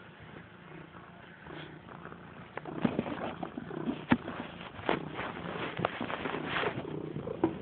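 Domestic cat purring at close range while it kneads laundry, with rustling of the clothes and a few sharp clicks. It gets louder about a third of the way in.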